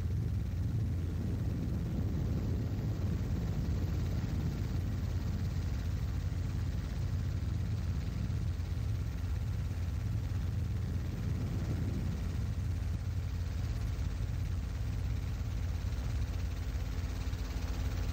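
Helicopter engine and rotor noise heard from inside the cabin: a steady low drone.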